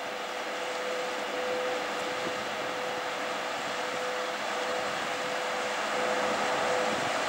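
VL80S twin-section AC electric locomotive approaching at the head of a freight train: a steady running hum with one even tone through it, slowly getting louder as it comes closer.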